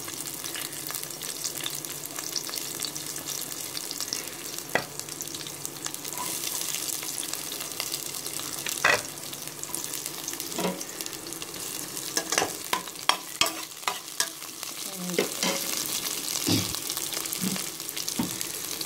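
Sliced onions sizzling in hot oil in a pressure cooker as they are sautéed, with a steady frying hiss. A stirring utensil clicks and knocks against the metal pot now and then, more often in the second half.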